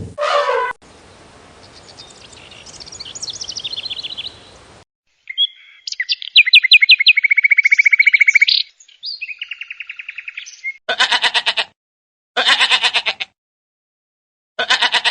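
A songbird sings rapid trills and runs of chirps for several seconds, then a bleating animal, a goat or sheep, calls three times in short, pulsing bleats.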